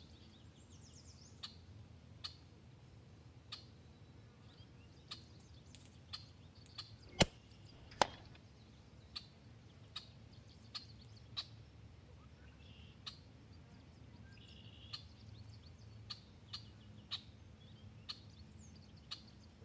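Quiet PCP air rifle shot: a sharp crack about seven seconds in and a second crack under a second later, over faint scattered ticks and a few bird chirps.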